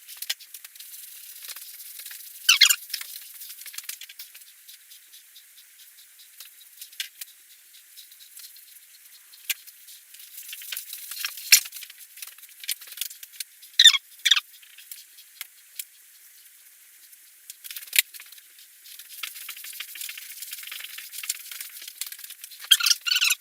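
Scattered light clicks and taps, with a few short rubbing scrapes about two and a half seconds in, around fourteen seconds and near the end.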